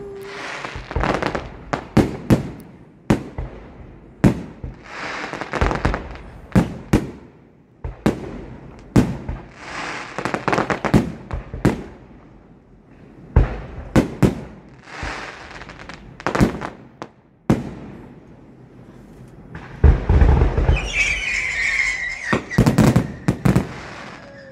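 Aerial fireworks going off in a quick, irregular series of sharp bangs, each followed by crackle. About twenty seconds in comes a louder, denser stretch of bangs and crackling.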